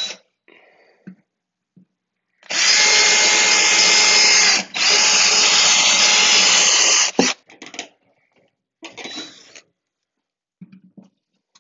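Cordless drill running at full speed for about four and a half seconds, with a brief let-up midway, boring a pilot hole through the basement wall at the ceiling line. A shorter burst follows a couple of seconds later.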